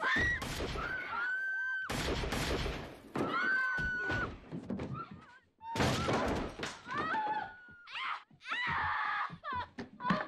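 A fight: heavy thuds and crashes of blows, with high, drawn-out screams and shouts over them.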